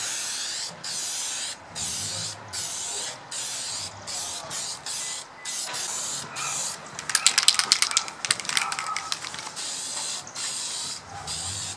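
Aerosol spray paint can spraying in short repeated bursts, each a second or less, with brief pauses between them. A spell of rapid rattling comes about seven seconds in.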